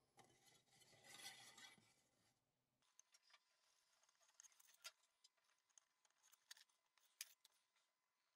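Faint scraping of a hobby knife blade cutting thin white sheet along a steel ruler: one longer stroke in the first two seconds, then scattered small sharp ticks and clicks of the blade and ruler.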